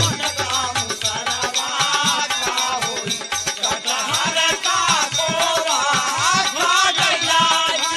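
Instrumental passage of Bhojpuri birha folk music: a wavering melody line over steady jingling, rattling percussion, with no singing.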